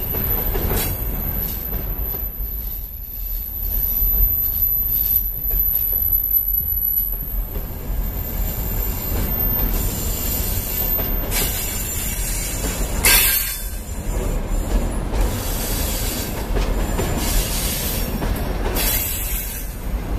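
Freight train of enclosed car-carrier wagons rolling steadily past at close range: continuous wheel-and-rail rumble, a thin high wheel squeal on the curve in the first few seconds, and brief louder surges as bogies go by about two-thirds of the way in and near the end.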